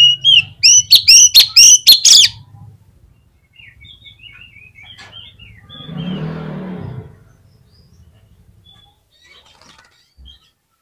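Oriental magpie-robin singing a loud, fast run of sweeping whistled notes for about two seconds, then softer, scattered notes. There is a brief rustling noise around six seconds in.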